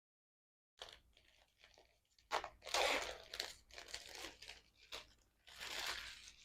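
Product box and its packaging being opened by hand: rustling, crinkling and tearing in several bursts, starting about a second in, loudest in the middle and again near the end.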